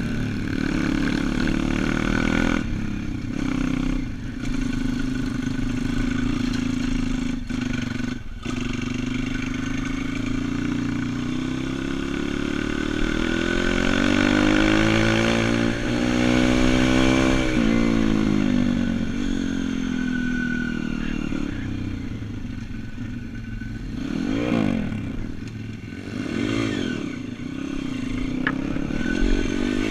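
Four-stroke engine of a YX pit bike running under way, its pitch rising and falling with the throttle and gear changes, with a long swell and fall midway and several quick rev blips near the end.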